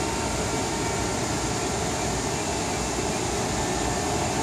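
Radio-controlled catamaran's motor whining steadily as the boat runs far out on the water, a thin even tone over a constant rushing hiss.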